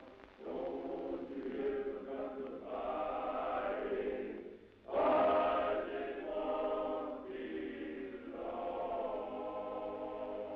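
Men's choir singing a spiritual or folk song in sustained, harmonized phrases. The singing drops briefly about four and a half seconds in, then comes back loudly on a new phrase.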